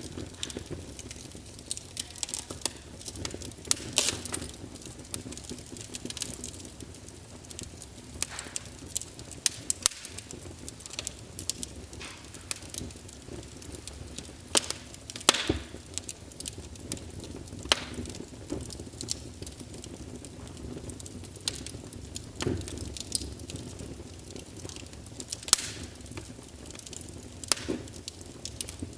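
Wood fire burning, with irregular sharp crackles and pops, a few louder snaps, over a steady low rushing of the flames.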